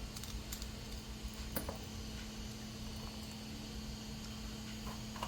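A steady low hum with a few faint clicks and taps as tiny Phillips screws are backed out of a utility knife's plastic housing with a small screwdriver.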